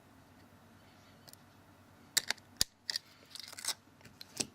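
A few small sharp clicks and taps of plastic parts and a tool, with a brief crinkle, as a phone screen's ribbon-cable connector is unplugged from the main board.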